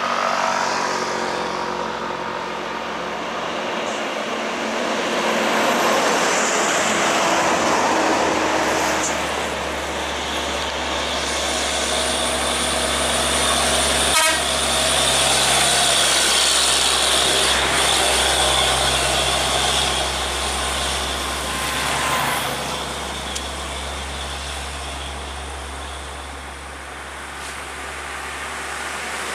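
Diesel engines and tyres of heavy trucks, a Mitsubishi Fuso dump truck and Hino box trucks, passing close by one after another, the loudness swelling and fading as each goes by. There is a sharp click about halfway through.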